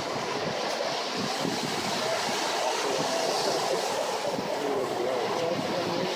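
Ocean surf breaking and washing up a sandy beach in a steady rush of noise.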